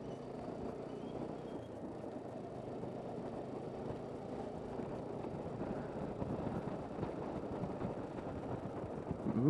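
Motorcycle running at road speed, its engine drone mixed with wind and road noise, heard from the rider's seat as the bike gathers speed.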